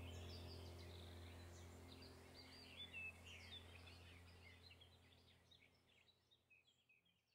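Faint birdsong: many quick chirps and twitters over a low steady hum, the whole fading out gradually to silence.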